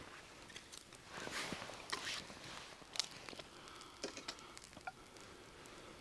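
Dry sticks being laid onto a small campfire: light rustling with scattered knocks and snaps of wood, the sharpest about three seconds in.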